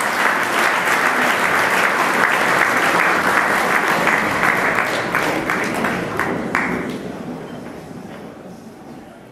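Audience applauding; the clapping thins out about six seconds in and fades nearly to nothing by the end.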